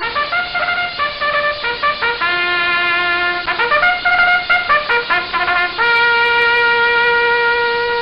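A short brass melody: a run of quick changing notes, then one long held note near the end.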